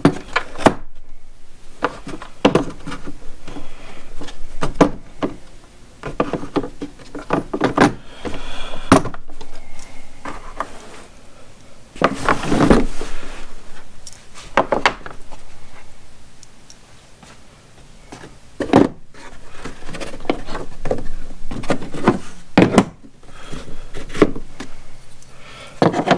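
Metal brake caliper wind-back adapters and tool pieces handled in and out of a hard plastic carry case: scattered clicks, knocks and rubbing, with a quieter stretch about two thirds of the way through.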